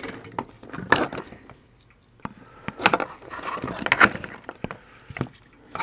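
Handling noise from a small circuit board being picked up and turned over: scattered clicks and short rustles, busiest about a second in and again around three to four seconds in.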